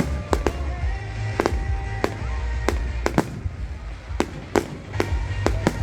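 Fireworks display shells bursting in rapid, irregular sharp bangs, about a dozen in a few seconds, with music playing underneath.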